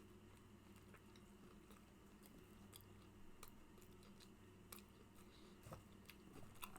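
Faint chewing with wet mouth clicks and smacks, a few sharp clicks every second or so, over a low steady hum.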